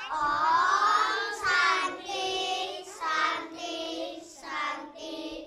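A group of young children singing together in unison, in short phrases.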